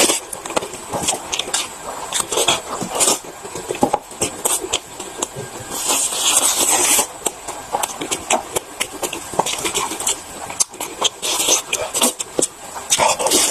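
Mouth sounds of someone eating chicken legs fast: a run of quick smacks and clicks of chewing and biting, with a longer sucking or slurping hiss about six seconds in.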